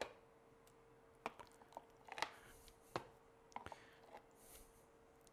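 Faint clicks and scrapes of a metal spoon against a glass jar as thick nacho sauce is scooped out, about half a dozen short ticks spread over a few seconds. A faint steady hum runs underneath.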